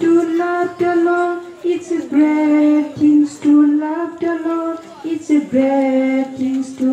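A group of children and a woman singing a song together in held notes, with short breaks between phrases.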